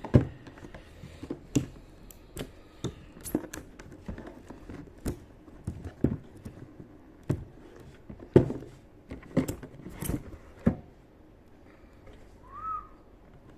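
Irregular clicks and knocks from a Nissin 16 mm brake master cylinder and its packaging being handled, stopping about eleven seconds in. Near the end there is one short chirp that rises and falls.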